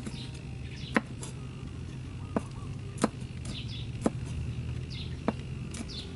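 Cleaver chopping red chillies on a thick round wooden chopping board: sharp, separate knocks of the blade on the wood, about one a second. Birds chirp faintly in the background.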